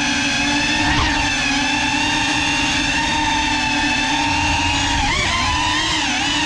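Small FPV quadcopter's motors and propellers whining at a fairly steady pitch, then wobbling up and down in pitch from about five seconds in as the throttle changes.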